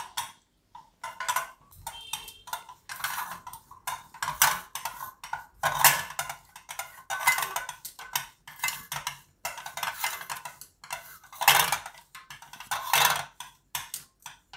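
Thin rolling pin working papad dough on a small legged rolling board: a quick, irregular run of knocking and scraping strokes as the pin and board clatter against each other and the counter.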